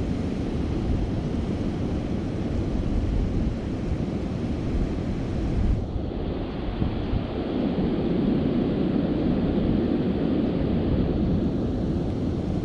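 Steady wind rumble buffeting the microphone outdoors, with a constant noisy hiss; the sound shifts abruptly about six seconds in at a cut between clips.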